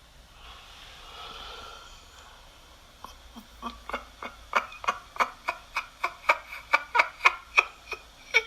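Demonic laughter sound effect: a faint breathy exhale, then from about three seconds in a run of quick laughing pulses, about three a second, growing louder.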